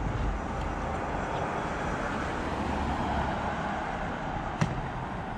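Steady city-street traffic noise that swells in the middle as a vehicle goes by, with one sharp click near the end.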